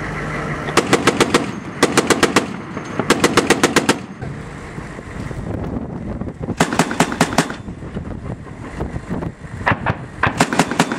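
Heavy .50 cal machine gun firing from a Humvee turret in about six short bursts of five to nine rapid rounds each, with a longer pause in the middle.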